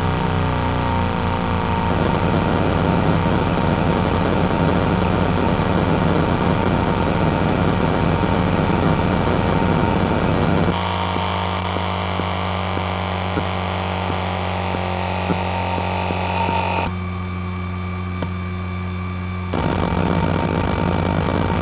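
ExcelStor CT210 10.2GB IDE hard drive running a seek benchmark: the spindle motor's steady hum under dense, rapid head-seek chatter. About halfway through the chatter thins out. A few seconds from the end it goes quieter for a while, then comes back fuller near the end.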